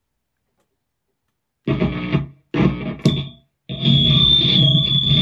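Toy kazoo played through a stick-on acoustic-guitar pickup into a guitar amp simulator with distortion, sounding like a distorted electric guitar. After a second and a half of silence come two short notes and then a longer held one, each cutting off sharply as a noise gate closes.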